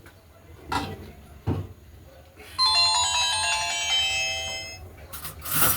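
Two knocks, then a short electronic chime melody of bright, bell-like tones lasting about two seconds, like a ringtone. A brief noisy burst follows near the end.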